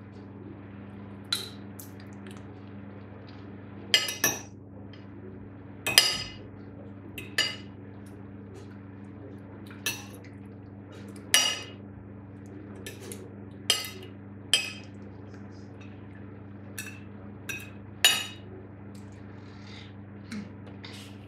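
Metal knife and fork clinking and scraping on a ceramic plate while cutting and picking up food, in sharp single clinks at uneven intervals every second or so. A steady low hum runs underneath.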